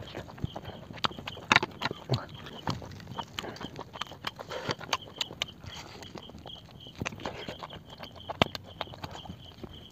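Close-up eating sounds: lips smacking, wet clicks and chewing as meat is bitten and torn off a cooked mutton leg by hand. The clicks come irregularly, with the sharpest about a second and a half in and again near the end.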